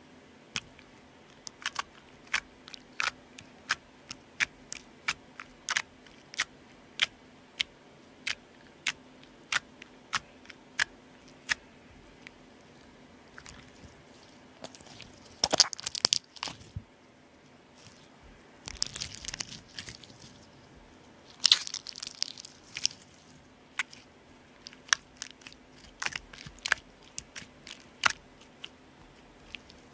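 Clear borax slime squeezed in the hands and pressed against a glass tabletop, making sharp wet clicks and pops, about two a second at first. Around the middle come denser runs of crackling, then scattered clicks again near the end.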